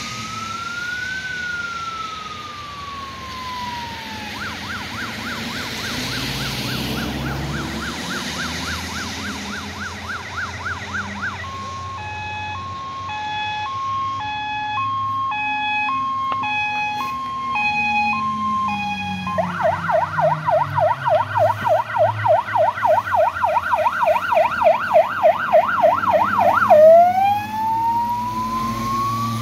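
Heavy fire engine's emergency siren cycling through its tones as it approaches and passes: a slow wail, then a fast yelp, a two-tone hi-lo for several seconds, a very fast yelp, and back into a rising wail. It grows steadily louder, loudest about 27 s in as the truck goes by, with its engine rumble underneath.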